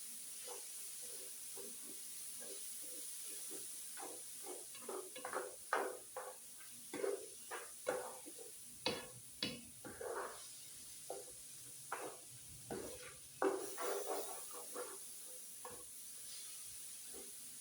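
Metal spatulas scraping and knocking on a flat-top griddle in quick irregular strokes, stirring and tossing pasta, over a steady sizzle.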